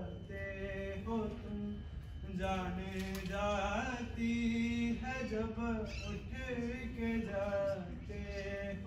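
A man singing a slow, unaccompanied melody with long held notes and gliding pitch.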